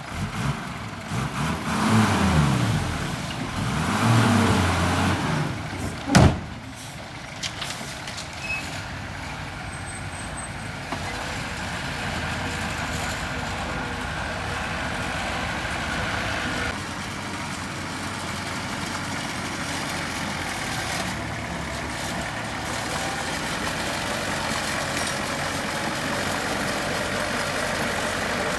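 Diesel engine of heavy earthmoving equipment revving up and down twice over the first few seconds, then a single loud bang about six seconds in, then running steadily.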